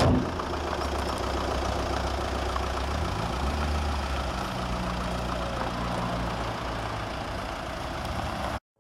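2003 Audi A3's 2.0 TDI four-cylinder turbodiesel idling steadily, after a short thump at the very start as the bonnet is shut. The sound cuts off abruptly near the end.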